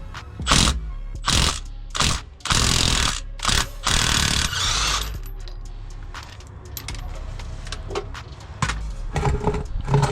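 Metal parts and tools being handled: a run of clanking and scraping bursts, some lasting about a second, then lighter clicks and knocks in the second half.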